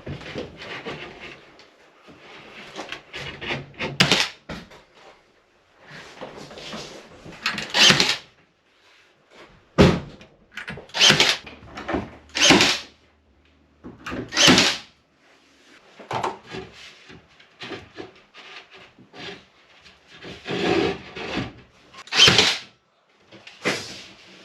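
Wooden cabinet being handled and fitted into place: an irregular run of knocks, bumps and scrapes of wood, with several sharper knocks and short pauses between them.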